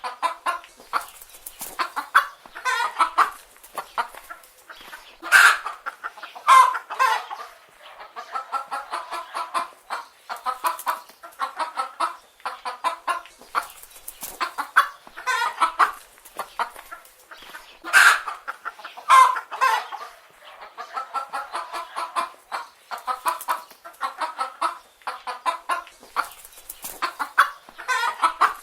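Chicken hens clucking steadily in rapid runs of short notes, with a few louder calls about five seconds in and again around eighteen seconds.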